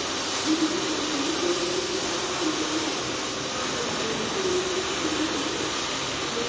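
MIG welding arc hissing steadily, with a low wavering hum beneath it.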